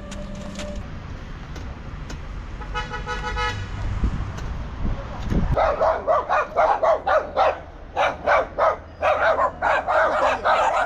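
A dog barking repeatedly in short quick barks, starting about halfway through, over steady road traffic; a vehicle horn sounds briefly about three seconds in.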